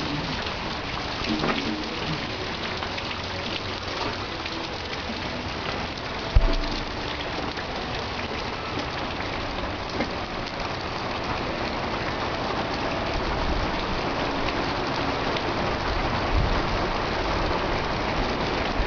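Steady desert summer rain falling, an even hiss of drops landing, with a single sharp thump about six seconds in.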